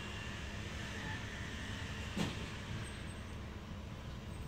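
Steady low background rumble, with one brief click about two seconds in.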